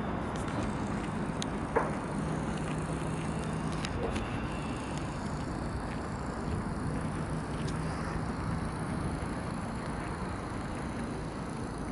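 Steady outdoor background rush with no single clear source. A faint low hum rises above it twice, for about two seconds each time, and there is one sharp tick about two seconds in.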